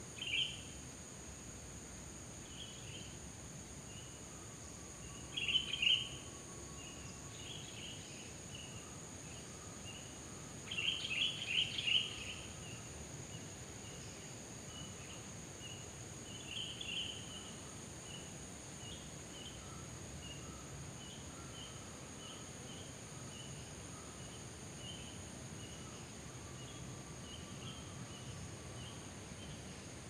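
Kingfisher nestlings chirping: many faint, short, high chirps, with a few louder buzzy bursts of chirping, the loudest about eleven seconds in, over a steady high background hiss.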